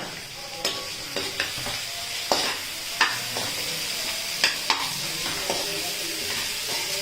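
Chopped onions sizzling in hot mustard oil in a kadhai with a steady hiss, while they are stirred, with several sharp knocks and scrapes of the spoon against the pan.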